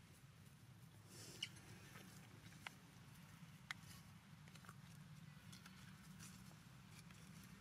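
Near silence: a steady low hum with three faint sharp clicks in the first half.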